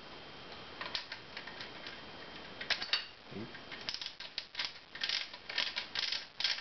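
Metal magazine end cap of a pump shotgun being screwed onto the magazine tube by hand: a few light metal clicks, then from about four seconds in a quick run of short ratcheting, scraping strokes, several a second, as the cap is turned down tight.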